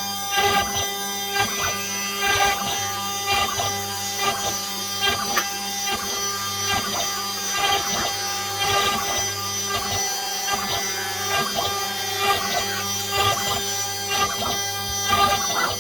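CNC engraving machine running, its motors holding several steady tones with frequent irregular clicks and ticks over them.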